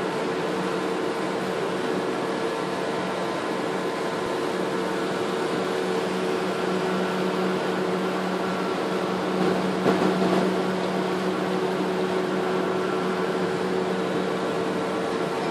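Steady drone of the boat's engine, a low hum with a higher steady tone over it. A brief louder bump about ten seconds in.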